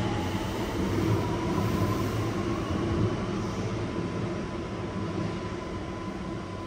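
A Yokohama Municipal Subway 3000S car standing at a station: a steady low hum and rumble from the car's onboard equipment, with a thin whine that rises through the first second and then holds one pitch.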